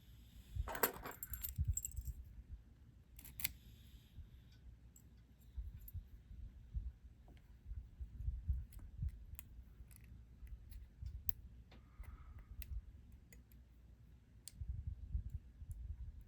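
A bunch of small padlock keys jingling as they are picked up and handled, in two short bouts in the first four seconds. After that come scattered small metallic clicks and handling noise on the bench.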